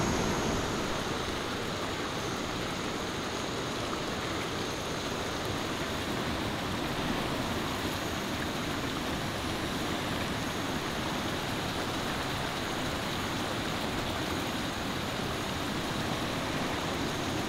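A shallow rocky river rushing over its rapids: a steady, even sound of flowing water.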